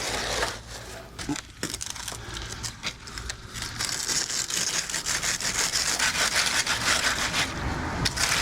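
Hand tools scraping and dragging through wet concrete in repeated rough strokes, lighter early on and steadier for the last few seconds.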